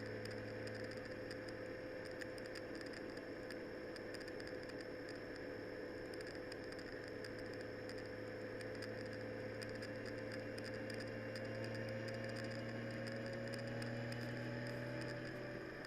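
A vehicle driving in the rain: a steady low drone, with a tone that rises slightly near the end, over an even hiss and many small ticks of raindrops.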